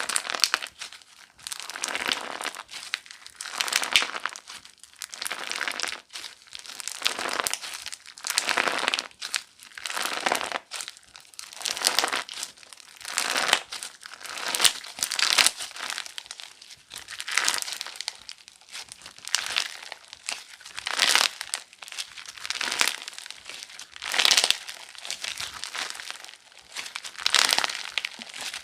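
Crunchy slime being squeezed and pressed by hand, crackling and crinkling with each squeeze in a steady run of repeated presses about once a second.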